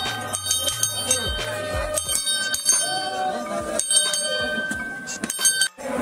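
Music with a steady beat, bright bell-like ringing and a voice; it drops out for a moment near the end.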